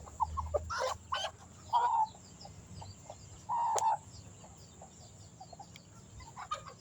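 Rooster clucking while being handled: short calls, two louder ones about 2 s and 4 s in, among scattered faint ticks.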